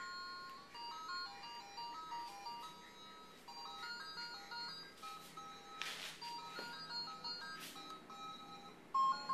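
A simple electronic tune of single beeping notes stepping up and down in a plain melody, with a few brief rustles partway through.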